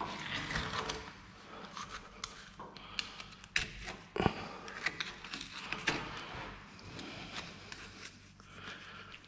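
Butcher's knife cutting through a raw pork shoulder at the elbow joint to free the shank, with quiet cutting and handling noise and scattered light clicks and knocks from the blade and the meat. The sharpest knock comes about four seconds in.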